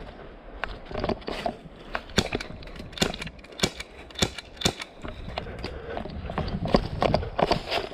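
Footsteps walking through dry fallen leaves, crunching and rustling about every half second.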